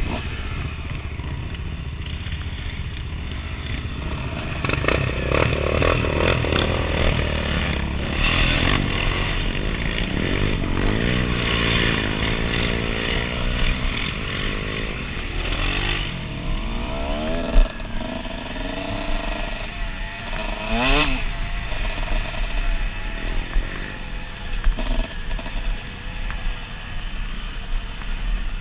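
Dirt bike engine running under load on a trail, its pitch rising and falling repeatedly as the throttle is worked, with wind rumble on the helmet microphone. A single sharp knock a little past halfway.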